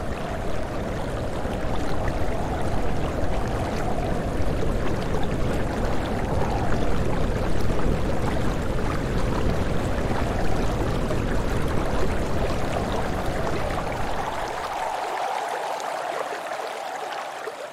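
Steady rushing, stream-like noise with a wavering hum in the middle range. Near the end the low end drops away and it begins to fade out.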